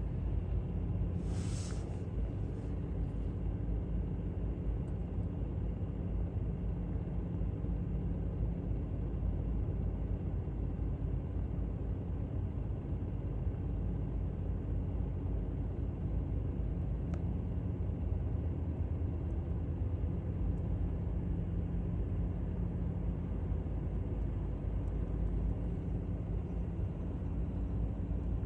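Steady low engine rumble from a distance, with a faint steady hum running through it. A brief rush of noise comes about a second and a half in.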